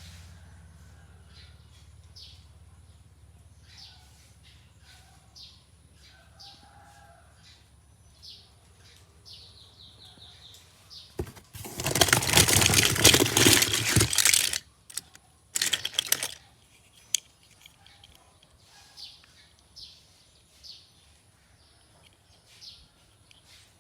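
Short high chirps, like a small bird, repeating every second or so. About halfway through comes a loud noisy rush lasting about three seconds, then a shorter one.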